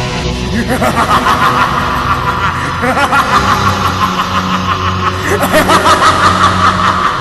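A cartoon villain's long, drawn-out evil laugh made of quick repeated pulses, over dark, dramatic music.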